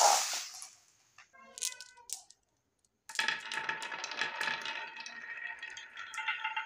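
A handful of marbles rolling and clattering down the wavy groove of a wooden marble slope: a dense rattle of quick clicks that sets in about three seconds in, after a single knock at the start.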